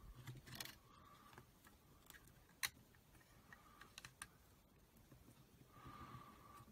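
Faint scattered clicks and taps of a hard-drive bracket being worked into a laptop's optical-drive bay, with one sharper click about two and a half seconds in.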